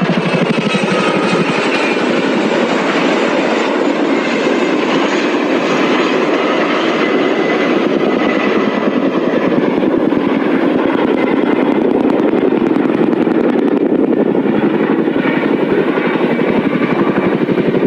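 Helicopter running loud and steady, its rotors beating in a rapid, even chop.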